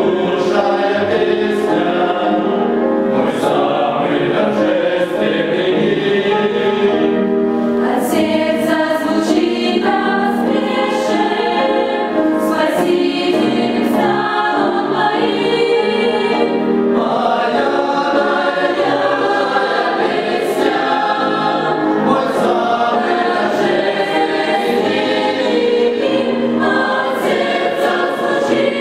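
Mixed choir of men's and women's voices singing a sacred choral song in parts, without pause.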